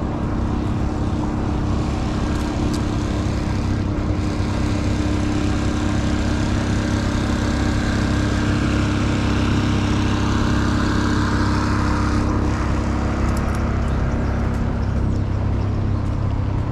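New York City subway train running: a steady rumble and roar with a low hum that fades out about thirteen seconds in.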